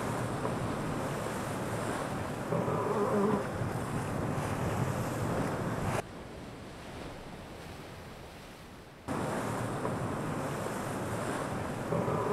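Wind buffeting the microphone over waves and spray rushing past yacht hulls in choppy water. The sound changes abruptly at cuts, is quieter for a few seconds mid-way, and swells about three seconds in and again near the end.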